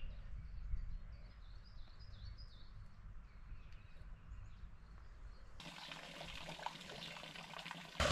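Small birds chirping in quick repeated calls over a low rumble. About five and a half seconds in, steady running water from an outdoor village tap takes over and grows louder near the end.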